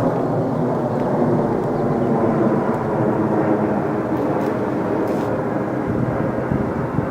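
Amazon Prime Air cargo jet flying low overhead: a steady, loud jet engine roar with a droning hum in it.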